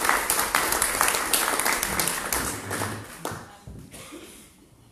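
Audience applauding, many hands clapping, dying away over the last second or two.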